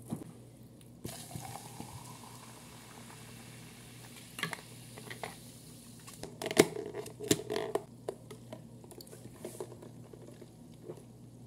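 A frosted plastic tumbler handled close to the microphone: something is poured into it, there are a few sharp plastic clicks and taps in the middle, and a straw sip near the end.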